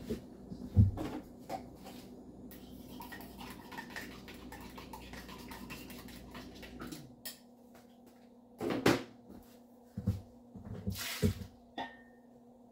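A kitchen appliance motor hums steadily, then winds down and stops about seven seconds in. Afterwards come scattered knocks and clatter of kitchen utensils and dishes, with a short hiss near the end.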